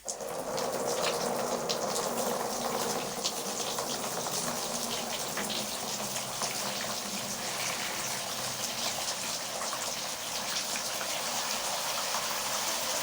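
Water spraying steadily from a worn-out gas burner converted into a shower head, with a patter of drops. The water comes on suddenly at the very start.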